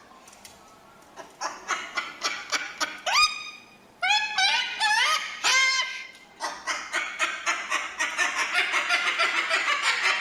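Cockatoo chattering: quick runs of clicking notes broken by a few short calls that rise in pitch about three and four seconds in, then a long, fast, laugh-like rattling chatter from about six and a half seconds on.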